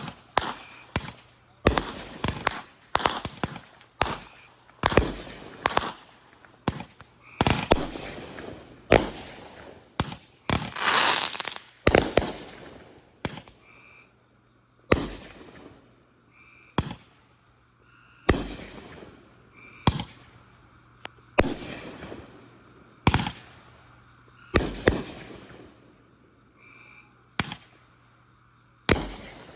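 Fireworks going off: a string of sharp bangs, one every second or two, each fading out, with a longer, denser burst about ten seconds in.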